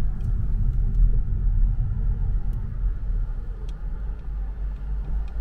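Steady low rumble of a car travelling on the road.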